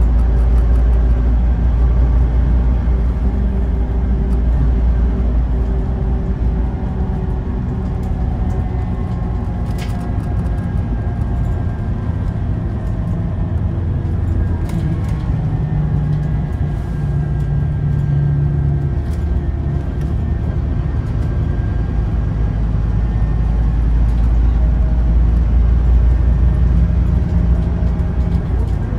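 Scania OmniLink CK230UB city bus under way, heard inside the passenger cabin: a steady low diesel drone and road rumble, with a faint gliding whine from its ZF Ecomat automatic gearbox. A few light clicks of rattling interior plastics come through, which the uploader calls typical of Scania.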